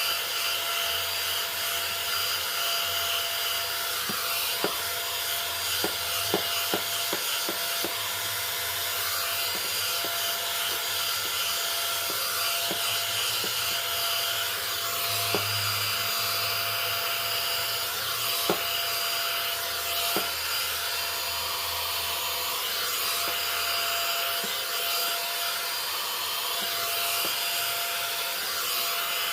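Safeway Salon Series volumising hot air brush running on its high setting: a steady fan blowing with a thin whine, as the brush is drawn through hair. Small clicks come in a scatter between about four and eight seconds in, with a few more later.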